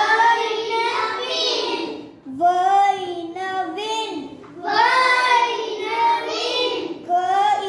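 A young boy's voice reading aloud in a sing-song chant, sounding out short words from an '-ig' and '-in' word-family phonics page, in phrases with short pauses between them.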